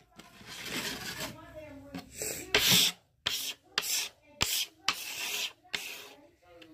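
Repeated short scraping strokes, about eight of them at uneven intervals, the loudest about two and a half seconds in.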